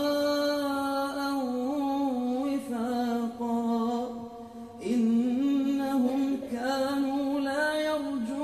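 A man chanting Quran recitation in the melodic tajwid style, the imam leading prayer: long held notes with ornamented turns in pitch. One phrase ends about four and a half seconds in and, after a breath, a new one begins.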